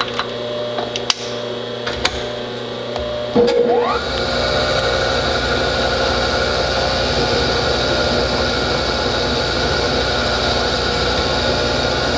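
Bridgeport milling machine's spindle motor starting a little over three seconds in, its whine rising quickly in pitch as it comes up to speed, then running steadily. A few light clicks come before it starts.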